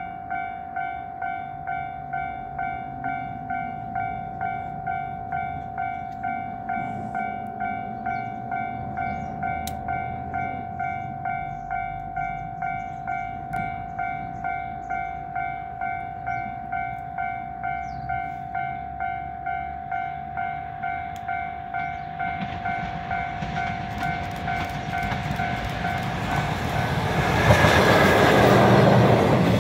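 Japanese level-crossing warning bell ringing in an even, repeating ding, about three strokes every two seconds. Near the end the approaching EF66 electric locomotive and its container wagons swell to a loud rushing and rumbling as they pass, drowning out the bell.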